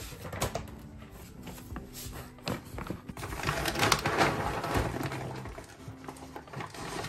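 Large plastic bag of dry dog food crinkling and rustling as it is opened, with scattered clicks. It is loudest about three to five seconds in.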